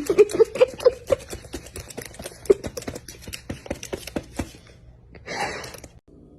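An animal chewing and munching noisily: rapid crunching clicks, with a few short pitched grunts in the first second, thinning out after about four seconds. A short breathy rush follows about five seconds in.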